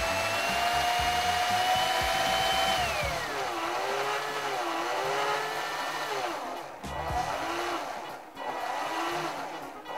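Small DC motor under PWM speed control whining as it runs. Its pitch creeps up, then drops about three seconds in, and after that it comes in short surges that rise and fall about once a second. The motor is slowing down as its count nears the set target.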